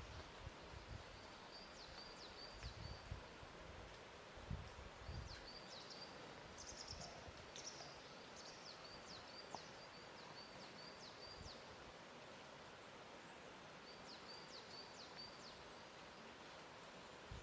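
Faint lakeside ambience: a steady soft hiss with small birds chirping in short, high, repeated phrases several times over. A few soft low bumps of lapping water come in the first few seconds.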